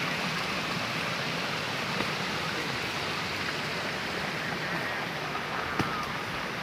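Steady rushing noise with a couple of faint clicks.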